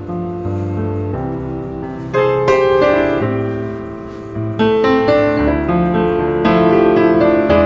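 Piano music playing, a melody of struck notes over held bass chords.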